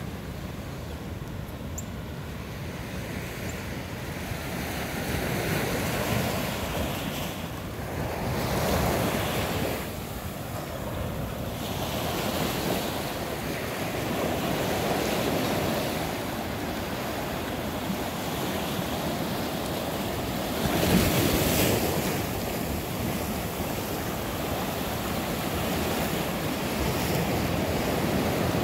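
Ocean waves washing onto the shore, swelling and ebbing every few seconds, with one stronger surge near the end. Wind buffets the microphone.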